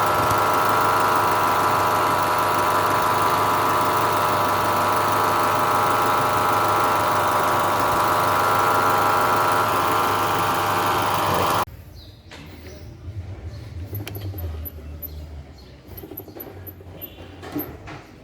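Car engine running with a loud, steady high whine-grinding from a damaged alternator. It cuts off abruptly about twelve seconds in, leaving quieter knocks and rustling.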